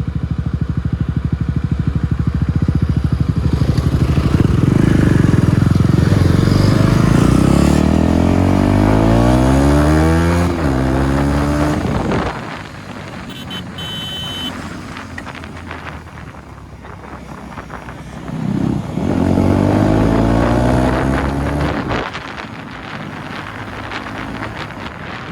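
KTM Duke 250 single-cylinder engine, with its exhaust removed, pulling hard under acceleration. Its pitch climbs for several seconds with a short dip midway, as at a gear change, then falls away abruptly when the throttle closes. A second, shorter rising pull comes about two-thirds of the way through.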